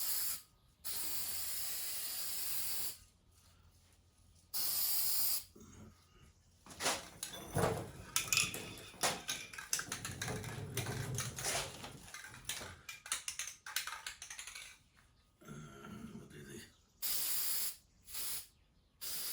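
Aerosol spray-paint can hissing in bursts: a long spray of about two seconds near the start, a shorter one around five seconds in, and several short sprays near the end. Between them comes a stretch of irregular clicking and clattering.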